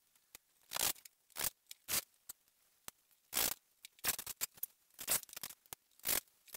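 A cordless drill driving screws into wooden panels in short bursts, about ten of them at irregular spacing, each a brief raspy whirr.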